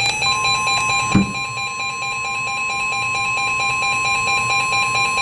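Emergency alert tones: a steady tone near 1 kHz, the NOAA Weather Radio warning alarm tone, sounding together with a fast, evenly pulsing electronic beep. There is a single click about a second in.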